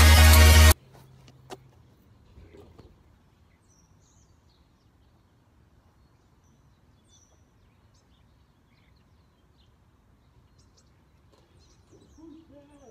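Electronic dance music cuts off abruptly under a second in, leaving quiet outdoor ambience with a few faint, scattered bird chirps.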